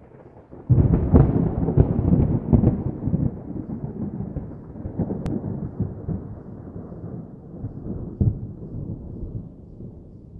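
A thunderclap breaks out suddenly just under a second in and rolls on as a low, crackling rumble that slowly fades. A smaller peal comes late on.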